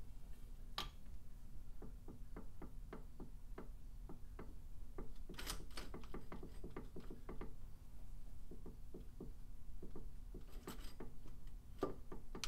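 Light metallic clicking, several ticks a second with a few louder knocks, from the bare KTM 450 SX-F engine being turned over by hand to line up a crank locking bolt at top dead centre.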